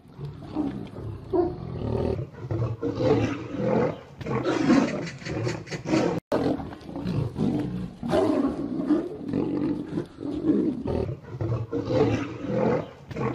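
A lion and a tiger fighting, roaring and snarling at each other almost without pause, with a brief cut-out about six seconds in.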